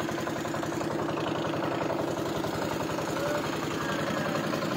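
Engine of a motorised outrigger fishing boat running steadily while the boat is under way.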